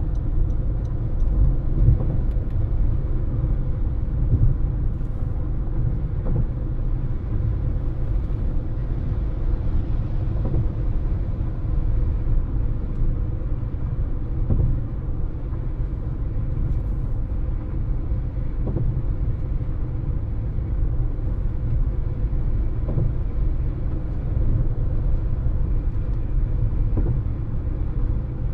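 Steady road noise of a moving car heard from inside the cabin: a continuous low rumble of tyres and engine.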